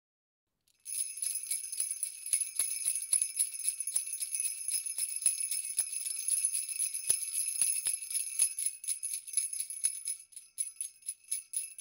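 Jingle bells shaken in a continuous high jingle, starting about a second in and breaking into separate shakes near the end.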